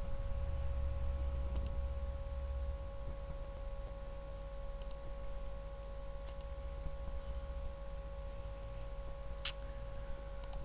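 A few faint, widely spaced computer mouse clicks over a steady electrical hum with a thin whine.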